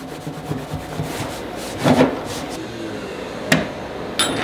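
Cloth rag rubbing along a steel chainsaw guide bar as it is wiped clean on a wooden bench, with a couple of short knocks near the end as the bar is handled.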